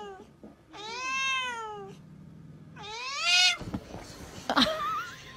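Domestic cat giving two long, drawn-out meows, the first rising and then falling in pitch, the second falling.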